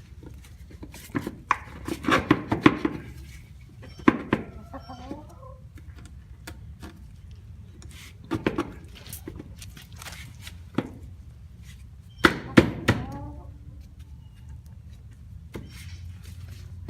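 Knocks and clattering as a cover is worked and pushed into place on a Kawasaki Mule utility vehicle, in bursts with pauses between, loudest about twelve seconds in. A chicken clucks in the background between the knocks.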